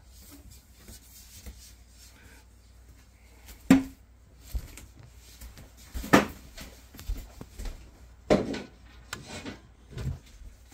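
Refrigerator shelf and tray parts being handled and taken out: about four separate knocks and clunks of glass and plastic, the loudest about six seconds in.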